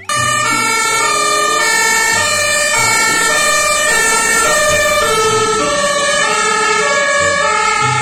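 German fire engine's two-tone siren (Martinshorn) sounding continuously, alternating between two pitches.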